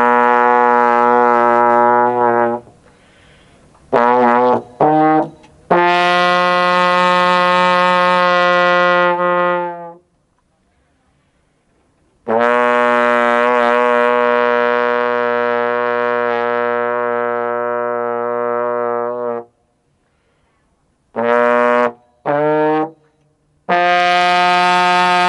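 B-flat tenor trombone played solo: long held notes with a few short notes in between, and two brief pauses.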